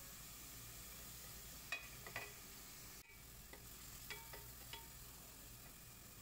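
Wooden spoon stirring fried shallots and garlic-ginger paste in an aluminium pot, giving a few light knocks and scrapes against the metal, over a faint frying sizzle.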